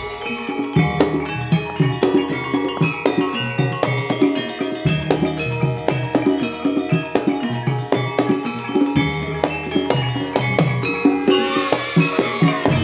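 Gamelan ensemble playing jaranan accompaniment: struck metal-keyed instruments and drums in a steady, driving rhythm. Near the end a wavering high melodic line joins in.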